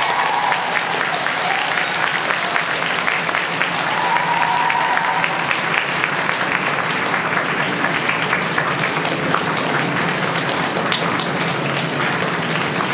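Arena audience applauding steadily at the end of a skating program. A short high cheer rises above the clapping about four seconds in.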